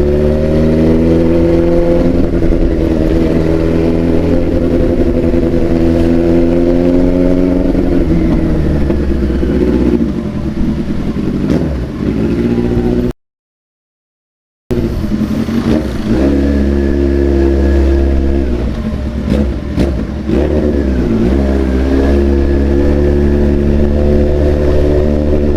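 Big-bike motorcycle engine with a loud exhaust, revving up and down repeatedly. The sound cuts to silence for about a second and a half about halfway through, then the revving resumes.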